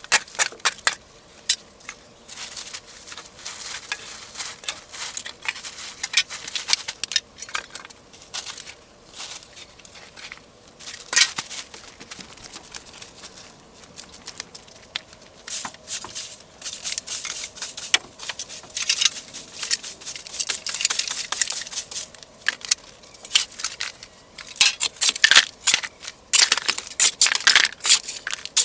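Irregular clicks, knocks, scrapes and rustles of objects being handled and moved, growing denser and louder in the second half.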